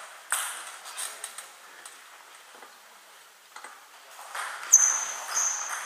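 Table tennis ball clicking off bats and the table in a rally, with a few hits early on, a lull, then more sharp hits. Near the end come two short high squeaks, like shoes on the sports-hall floor.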